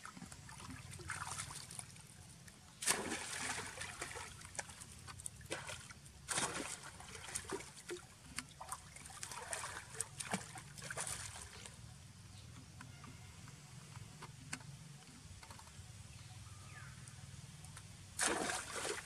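Young macaques splashing and paddling in a pool of still water: irregular sloshes and splashes, the loudest about three seconds in, around six seconds in, and again near the end.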